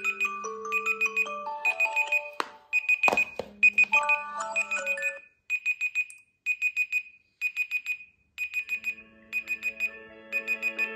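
Several smartphone alarms going off together on Samsung Galaxy Z Flip3 and Z Fold3 phones: a high, rapid beeping alarm in groups of about five beeps, roughly one group a second, with a melodic alarm tune layered over it that drops out for a few seconds in the middle. A single knock a little after three seconds in.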